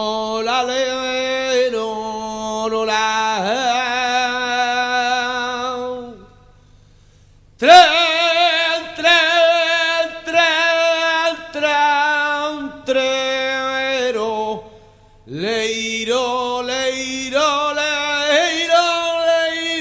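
A solo voice singing long, drawn-out wavering notes in chant-like phrases, broken by two short pauses about six and fifteen seconds in.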